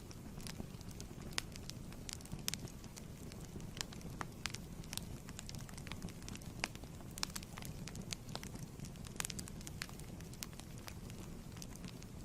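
Fireplace wood fire burning: a steady low rumble of flames with irregular sharp crackles and pops from the burning wood.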